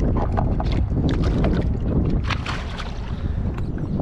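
Wind rumbling on the microphone over water lapping and splashing at the side of a kayak, with a few short splashes at the waterline as a skate is unhooked beside the hull, the strongest about two and a half seconds in.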